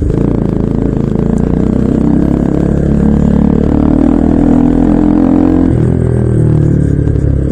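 Bajaj Pulsar NS200's single-cylinder engine accelerating while riding, its note rising steadily. The note drops sharply at a gear change a little before six seconds in, then starts rising again.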